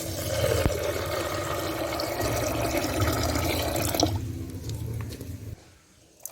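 Water pouring or running into a vessel as a steady splashing flow. It stops abruptly about five and a half seconds in.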